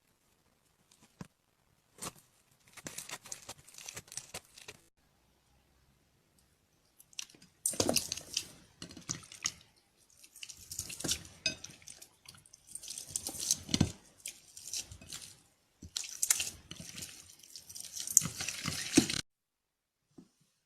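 Hands squishing and poking slime, giving wet crackles and popping clicks in uneven bursts. A softer stretch comes first, then a longer, louder spell of squishing that stops abruptly near the end.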